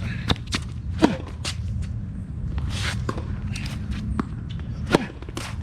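Footsteps and scattered sharp knocks on a hard tennis court, with two louder pops about a second in and near the end, over a steady low rumble.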